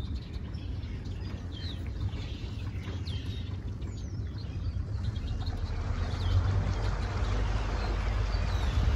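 Small fishing boat moving slowly across floodwater: a steady low rumble with wind and water hiss that builds about halfway through. Short bird chirps sound now and then.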